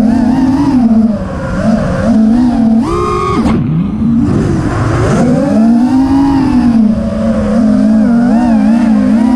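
A 5-inch FPV racing quadcopter's Emax RS2205 2300 kV brushless motors and HQ 5x4x3 props whining in flight, the pitch rising and falling with the throttle. About three seconds in there is a short sharp punch of throttle to a much higher whine. A rush of wind runs underneath.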